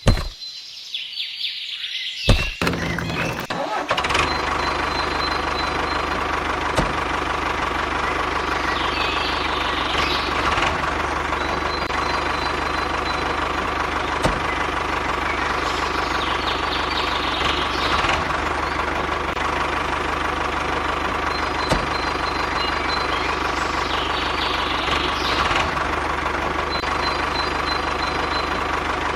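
An engine starts about two to four seconds in, then runs at a steady idle with a constant whine, its sound repeating in a pattern about every eight seconds.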